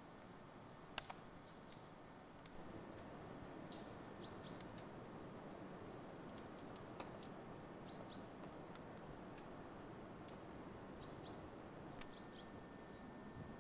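Faint bird calls: short high chirps repeated every second or two over a steady hiss, with one sharp click about a second in.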